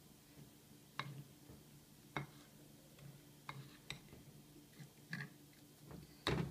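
A metal spoon stirring dry flour in a bowl, clicking against the bowl now and then, with a louder knock near the end. A faint low steady hum runs underneath.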